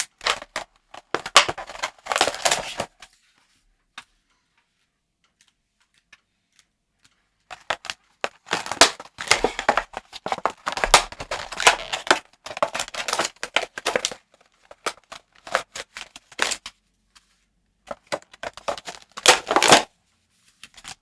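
Screen-cleaning wipe sachets being cut open with scissors and handled: snipping and crinkling of the wrapper in dense runs of quick clicks and crackles, broken by a silent pause of a few seconds.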